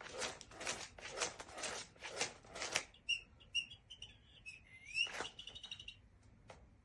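An interactive cat toy with a squeaking-mouse sound: about six rustling scrapes, roughly two a second, then a run of short high squeaky chirps. Next comes a rising squeak and a held squeak, followed by a couple of light clicks.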